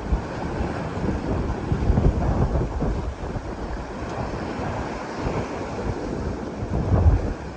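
Bow wave rushing and splashing along the hull of a heeled sailing yacht making about 8 knots, with wind gusting on the microphone; the strongest gust comes near the end.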